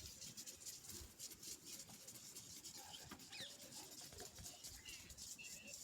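Near silence with faint bird chirps, including a short falling chirp about three seconds in, and faint scattered ticks.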